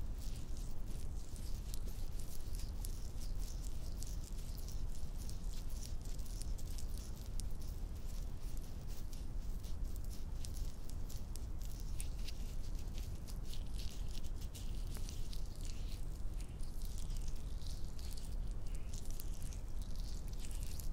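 Hands rubbing and scratching close to the microphone: a dense, steady crackle of small scratches and skin sounds.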